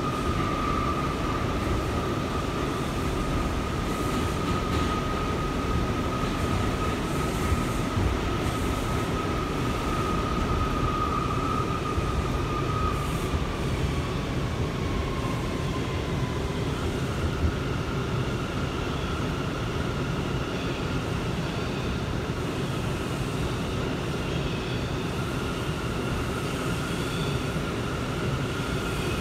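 New York City subway train running, heard from inside the car: a steady rumble of wheels on the rails with a high whine. About halfway through the whine slides down in pitch, and then higher whines come in.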